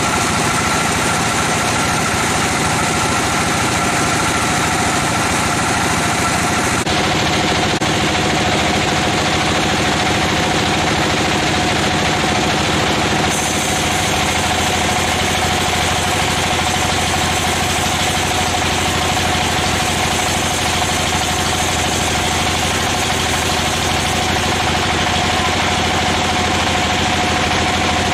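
Sawmill machinery running steadily, a loud machine hum with several steady tones; the hum shifts abruptly to a different pitch twice, about a quarter and about halfway through.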